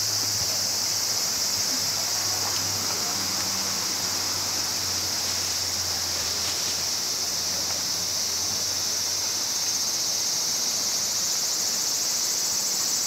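Steady high-pitched chorus of summer insects, unbroken throughout, over a faint low hum.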